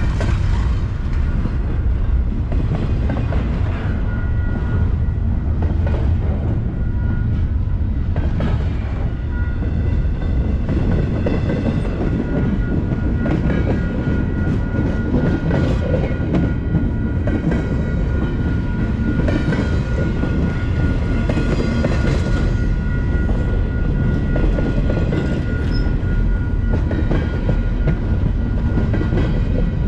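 Double-stack intermodal freight train's container well cars rolling past: a steady rumble of steel wheels on rail, with scattered clacks as the wheels cross rail joints.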